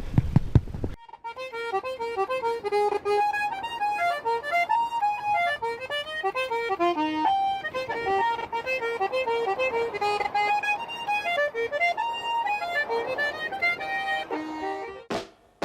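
Horse hooves clopping briefly, then about a second in a lively accordion tune starts: a quick melody of short, stepping notes that stops abruptly just before the end.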